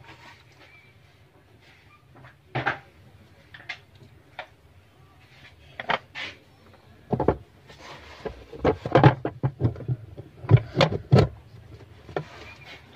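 Irregular knocks and clunks of washing machine parts being handled as the drive pulley is set back in place, sparse at first and then a quick cluster of sharper knocks in the last few seconds.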